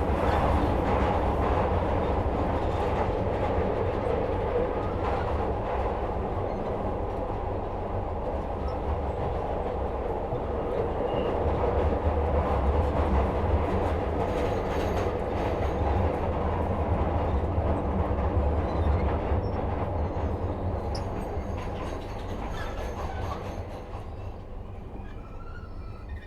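Interior of a Metro-Cammell Glasgow Subway car running through the tunnel: a continuous heavy rumble of wheels and running gear, with faint thin high squeals now and then. It grows quieter over the last few seconds.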